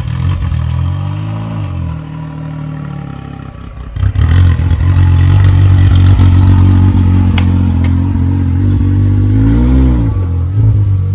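2017 Can-Am Maverick X3's turbocharged three-cylinder engine, fitted with a KMS big turbo, running at low revs as the car is driven down and off a trailer ramp. There is a short rev about a second in, the engine grows louder from about four seconds in, and another brief rev comes near the end. A couple of sharp knocks are heard as the car comes off the ramp.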